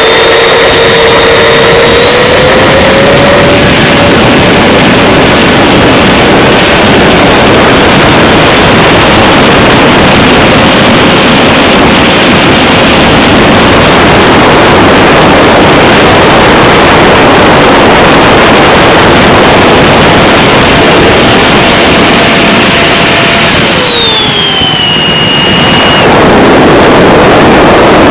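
Electric ducted fan of a radio-controlled jet model (Mercury 64 EDF) running at high power in flight, a loud rushing whine mixed with air noise. Near the end the whine glides down as the throttle eases off, then comes back to full rush about two seconds later.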